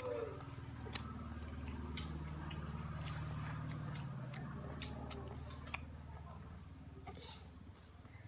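Faint chewing and scattered small clicks and taps of a toddler eating, over a steady low hum.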